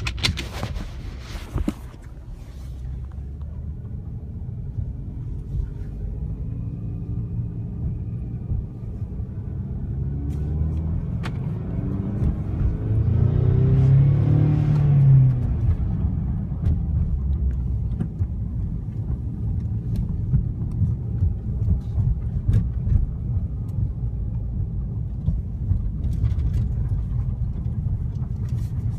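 2015 Ford Mustang's 2.3-litre EcoBoost turbocharged four-cylinder engine heard from inside the cabin, running with a steady low rumble, then climbing in pitch and loudness to a peak about 14 seconds in before settling back down.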